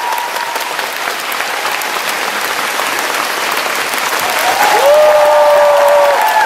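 Theatre audience applauding with dense, steady clapping. From about four and a half seconds in, a few long high-pitched cheers rise over the clapping.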